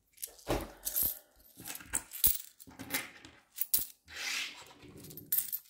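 Loose coins clinking as they are picked up off a wooden desk and gathered in the hand, a string of irregular sharp chinks with a brief sliding rustle near the end.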